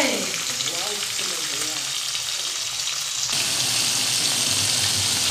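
Whole parshe fish shallow-frying in a little hot oil in a kadai, a steady sizzle. The sizzle gets brighter and a little louder about three seconds in.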